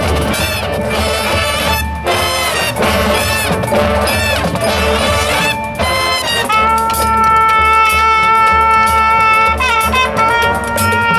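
High school marching band, led by its brass, playing a fast, busy passage, then holding a long sustained chord from about six and a half seconds in, shifting briefly near the end into another held chord.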